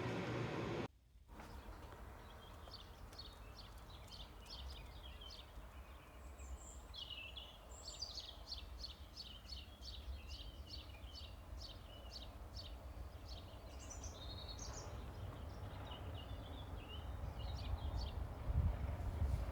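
Small songbirds singing, many quick chirps and trills, over a low rumble that grows louder near the end. For about the first second a steady hiss of car road noise runs, then cuts off suddenly.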